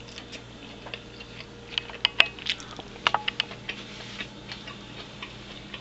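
Scattered small clicks and ticks, several close together about two to three and a half seconds in.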